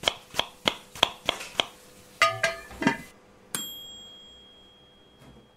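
Short outro jingle of sound effects: a run of even ticks at about three a second, a few quick pitched notes, then a single bright bell ding that rings out and slowly fades.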